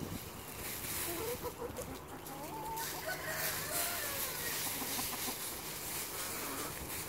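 A flock of backyard hens clucking with short, soft calls while they scratch and peck through dry leaves, the leaves crackling and rustling underfoot. The calls come mostly in the first half.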